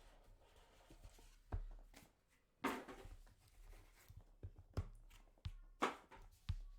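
Faint handling of a sealed trading-card box as it is opened: a few short knocks and clicks, with a brief rustle of packaging about three seconds in.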